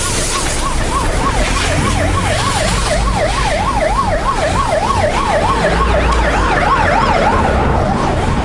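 Emergency-vehicle siren in a fast yelp, its pitch rising and falling about four times a second. It grows stronger through the middle and fades near the end. Under it runs a steady low rumble of ride noise.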